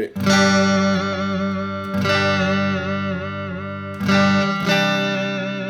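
Electric guitar (a Main Street Stratocaster copy) strumming three chords about two seconds apart. Each chord rings on while the vibrato bar dips and wobbles the pitch. The bridge only dives, pulling the pitch down, and does not pull it back up.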